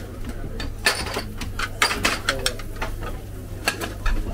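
Crockery and metal clinking as soup is served: several sharp clinks of white ceramic bowls and plates and of metal at a soup pot, over a steady low hum.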